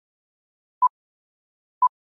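Countdown timer ticks: short, sharp pips at a single pitch, one each second, two of them (about a second in and near the end), with silence between.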